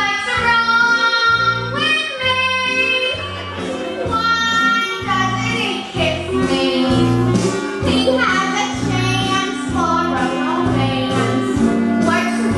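A woman singing a stage-musical song with live instrumental accompaniment, her phrases separated by short breaks over a steady bass line.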